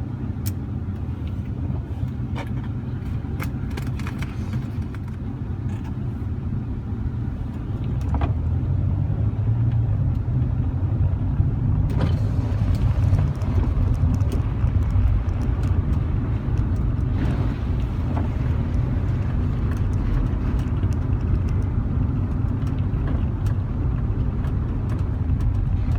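Car driving, heard from inside the cabin: a steady low rumble of engine and tyres on the road that grows louder about eight seconds in.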